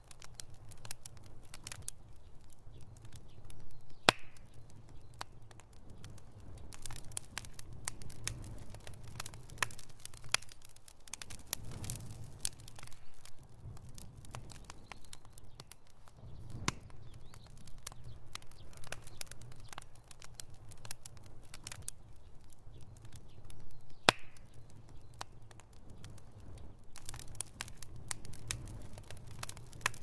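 Wood bonfire of split logs crackling, with frequent sharp pops and two louder snaps about four seconds in and again twenty seconds later, over a low steady rumble.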